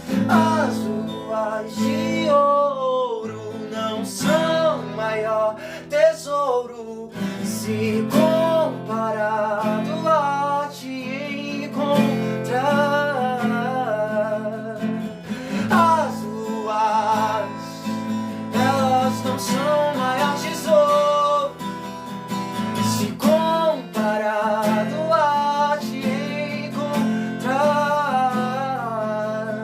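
Acoustic guitar strummed under a voice singing a slow melody.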